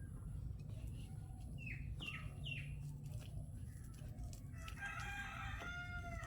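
Faint farmyard background in which three short chirps, each falling in pitch, come about two seconds in. Near the end a rooster crows faintly for over a second.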